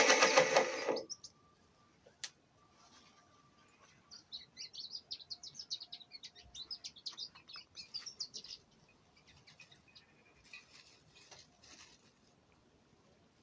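A small bird chirping: a quick run of short, high chirps for about four seconds, starting about four seconds in, then a few fainter chirps later. Background music fades out in the first second.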